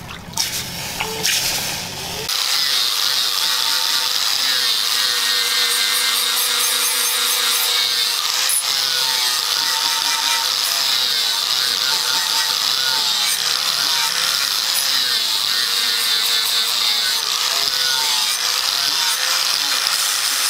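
Water splashing for a couple of seconds. About two seconds in, an angle grinder with a flap disc starts running steadily, sanding the face of a forged steel axe head.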